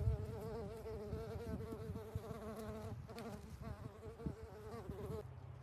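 A flying insect buzzing close by, its pitch wavering. It breaks off briefly about three seconds in, then stops suddenly near the end.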